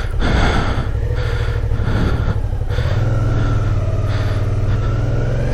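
Suzuki V-Strom 650XT's V-twin engine running under throttle as the bike works its way out of a rut, rough and uneven at first, then settling into a steady drone about three seconds in.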